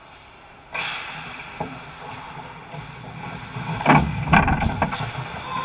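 Ice hockey skate blades scraping hard on the ice close to the goal, with a sharp scrape about a second in. About four seconds in comes a quick flurry of loud knocks and clatter from sticks, skates and the puck in a scramble at the net.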